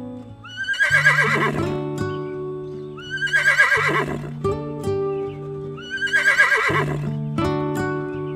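A horse whinnying three times at even intervals, each call rising sharply then falling away in a shaky quaver, over background music with held notes.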